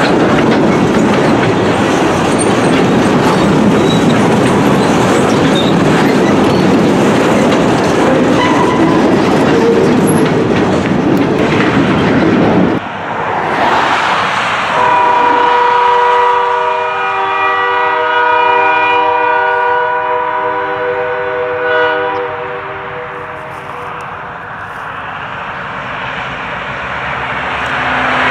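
Freight train's boxcars rolling past close by, wheels clicking over the rail joints, until the sound cuts off abruptly about halfway. Then a diesel locomotive's multi-note horn sounds from a distance for about seven seconds, and a car comes up on the road near the end.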